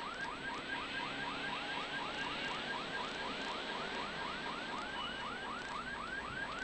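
Electronic warning siren yelping: a quick rising sweep repeated steadily about four times a second, over faint car running noise.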